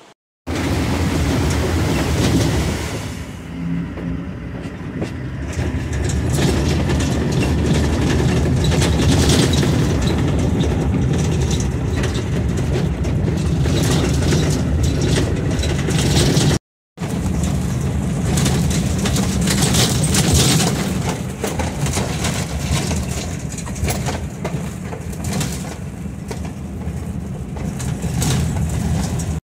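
Vehicle driving along a rough dirt road, heard from inside its open-sided cab: a steady low rumble of engine and tyres with frequent rattles and knocks from the bodywork. The sound drops out briefly a little past halfway.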